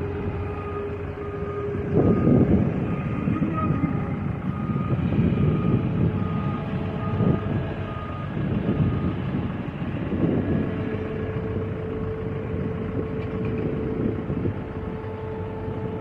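Road roller's diesel engine running under load, with a reversing alarm beeping in regular pulses for about the first half. Later a steady whine holds above the engine.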